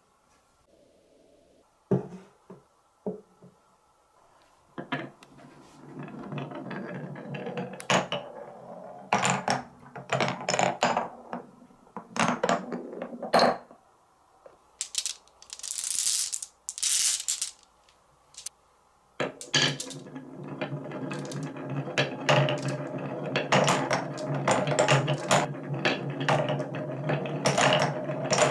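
Glass marbles rolling through grooved wooden marble-run blocks, a steady rolling rumble broken by sharp wooden clicks and knocks as marbles drop and strike the pieces. Near the start, a few separate clicks of wooden blocks being set down. Around the middle there is a brief hiss, and the rolling and clicking grow dense in the last third.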